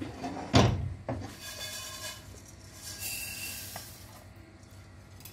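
Roasted coriander seeds being tipped from a nonstick frying pan into a glass bowl: a sharp knock of pan or spatula about half a second in, a second smaller knock just after, then a faint rustle of seeds sliding and pouring.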